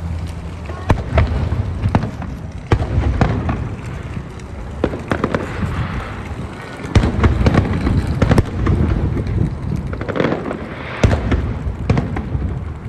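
Aerial fireworks display: a rapid, irregular series of booms and sharp bangs, several of them close together, over a continuous rumble.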